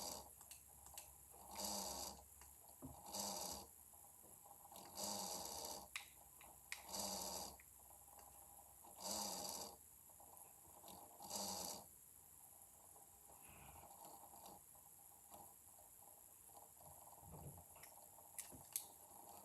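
A PC making grinding noises: six short rasping grinds about two seconds apart, which stop about twelve seconds in, leaving only faint background with a few light clicks.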